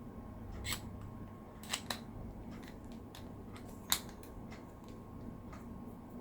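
KastKing Sharky 3 spinning reel being handled as its handle is swapped to the right side: a handful of sharp small clicks of the reel's parts, the loudest about four seconds in, with fainter ticks between.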